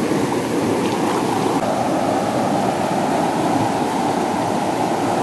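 Fast river water rushing over a low dam weir and through rapids: a steady, loud rush of churning water close by.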